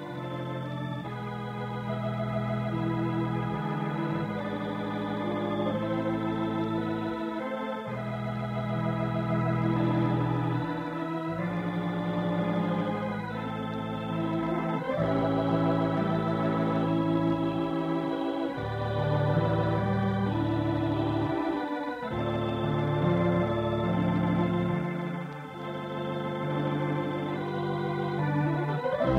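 Organ music playing the programme's closing theme: held chords that change every second or two.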